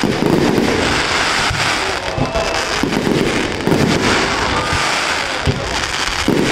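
Fireworks display: a dense, continuous crackling and popping of bursting shells, with several deeper booms among them.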